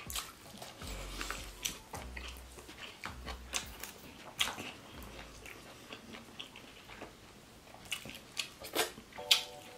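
Close-up eating sounds: chewing and biting of grilled pork intestine (isaw) and rice, with scattered sharp clicks of bamboo skewers and utensils against bowls and the table.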